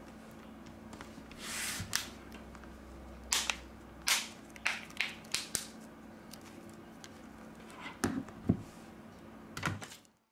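Plastic back cover of a Blackview BV5000 rugged phone being pressed into place around its edges by hand, giving a series of sharp clicks and knocks with a brief rustle of handling before them.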